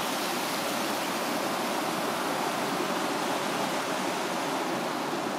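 The Falls of Dochart, the River Dochart's rapids, rushing steadily: an even hiss of white water that does not let up.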